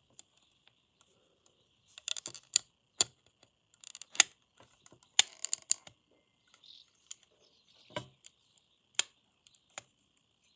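Irregular small clicks and taps of a Logitech M185 mouse's plastic parts being handled and pried apart, some in quick little clusters.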